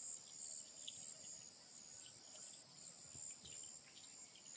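Faint, steady high-pitched insect chirring, typical of crickets, that swells and fades slightly.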